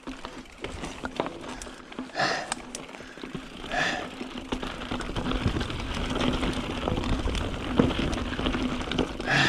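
A mountain biker breathing hard, with loud exhalations about two, four and nine seconds in, over clicks and rattles from the bike. A steady rushing noise of tyres and movement on the trail builds from about halfway.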